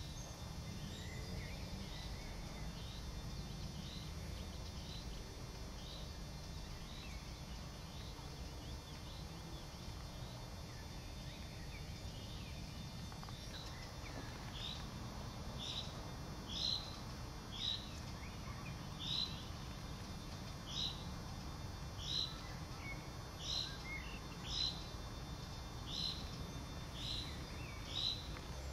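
A small bird repeating a short, high chirp about once a second, faint at first and louder and clearer in the second half, over a steady low background rumble.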